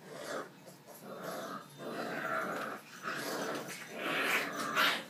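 Presa Canario puppies growling in a string of short bursts as they play-wrestle, getting louder toward the end.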